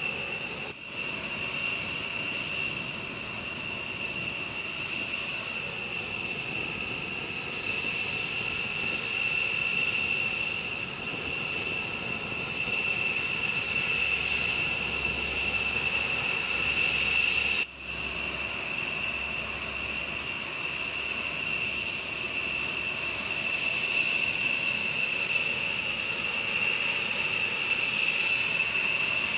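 Jet engines of a B-1B Lancer running at idle on the ramp: a steady high whine over a broad rush of air. The sound drops out briefly twice, about a second in and a little past halfway.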